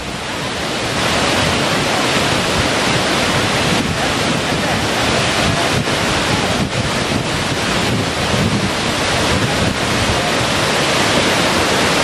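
Waterfall cascading over rock slabs: a loud, steady rush of falling water that swells in over the first second.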